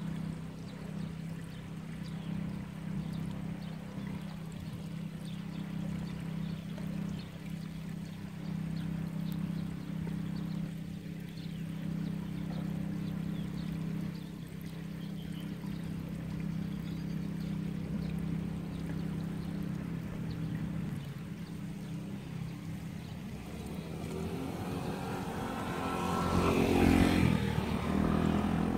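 A steady low engine hum. Near the end a motor vehicle grows louder and passes close by.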